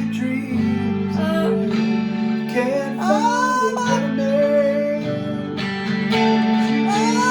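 Acoustic guitar strumming chords with a high voice singing over it in long, gliding notes.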